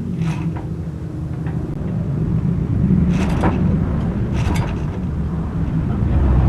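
A converted diesel motorcycle engine running on petrol, a steady low drone that grows louder from about two seconds in, with three short sharp cracks: near the start, around three seconds in and around four and a half seconds in. The owner says this engine still often detonates, which he puts down to ignition timing or fuel not yet right.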